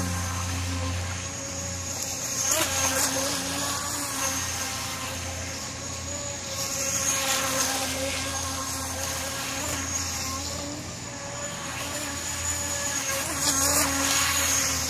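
Atomik Barbwire 17-inch brushless RC boat's electric motor running at speed, a steady high whine with water spray, swelling louder three times as the boat passes close.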